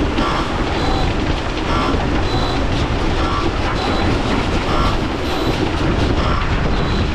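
A heavy machine running steadily and loudly, with a faint clatter that comes round about every second and a half.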